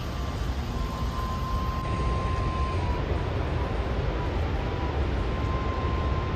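Steady, deep rushing roar of the floodlit Niagara Falls, with a thin high tone coming and going.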